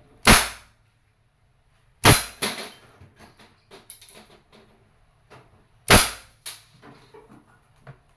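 Umarex Beretta PX4 Storm CO2 air pistol firing steel BBs: three sharp shots, the second about two seconds after the first and the third about four seconds later. Fainter knocks of the BBs hitting the targets follow the last two shots about half a second later.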